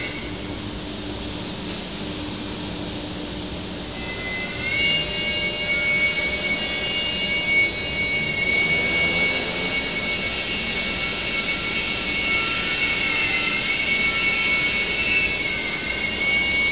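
CNC router running with a steady high-pitched whine. The whine drops back for the first few seconds, then returns louder about four and a half seconds in and holds.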